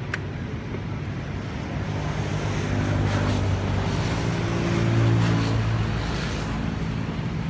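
A motor vehicle's engine humming, growing louder to a peak about two-thirds of the way through, then fading.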